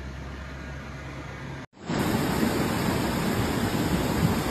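A low steady hum, cut off abruptly about a second and a half in. It is followed by a loud, steady rushing of fast muddy floodwater pouring through a street.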